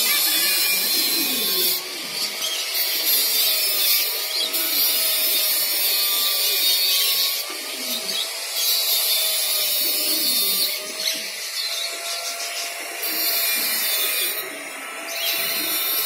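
Pigeon cooing in low, falling notes every few seconds, under a loud high hissing noise that starts and stops in stretches of one to three seconds, and a faint wavering steady tone.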